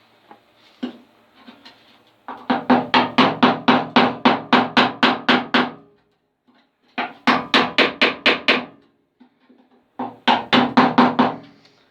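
Hammer blows on the steel wing of an Austin A30, knocking the cut edge over flush. The blows come in three quick runs of about four a second, and the panel rings under them.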